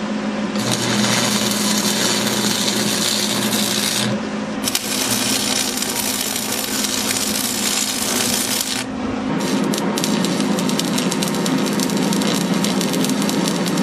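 MIG welder arc crackling and sizzling while steel railing pieces are welded, in three long runs with brief breaks about four and nine seconds in, over a steady low hum.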